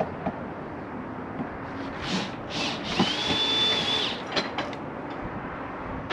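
Power drill spinning in two short bursts, then running steadily for about a second with a high whine, backing a screw out of the slide-out awning rail. A few light clicks follow.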